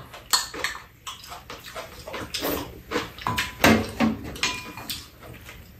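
Eating sounds at a shared meal: spoons and chopsticks tapping and clinking against ceramic bowls and a metal pan, a couple of clinks briefly ringing, mixed with wet chewing and slurping.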